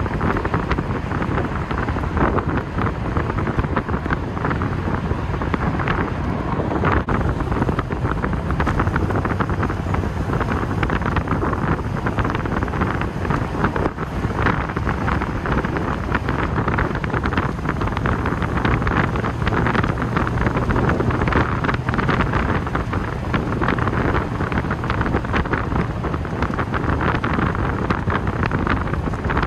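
V8 TVR sports car driving with its roof off: wind buffets the microphone over the steady running of the V8 engine and road noise.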